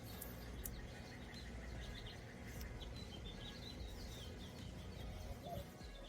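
Faint outdoor background noise, a low steady rumble, with small birds chirping now and then.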